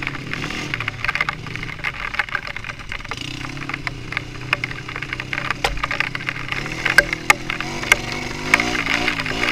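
A vehicle engine running under many sharp clicks and crackles, its pitch rising and wavering near the end.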